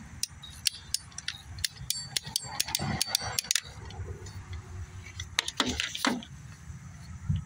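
Hand ratchet cutter clicking as it is squeezed shut through a plastic duct, a string of sharp clicks that come quicker over about three and a half seconds, then a few more clicks around five to six seconds in as the tool is handled.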